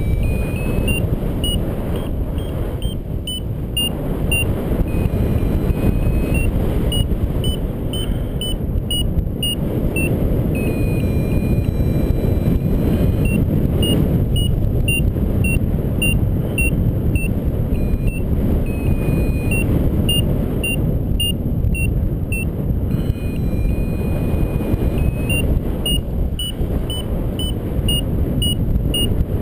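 Paragliding variometer beeping in short high pips about two a second, the sign of weak lift, switching now and then to a longer, lower steady tone, the sign of sink. Heavy wind rush on the microphone from the airflow of flight runs underneath.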